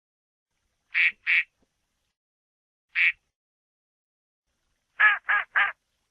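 Rubber duck bath toy squeaked six times: two quick squeaks about a second in, a single one near the middle, then three quick, lower-pitched squeaks near the end.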